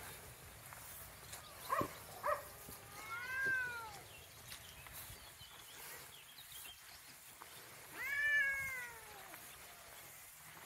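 Domestic cats meowing: two short mews about two seconds in, then a meow that rises and falls in pitch, and a louder, longer one near the end.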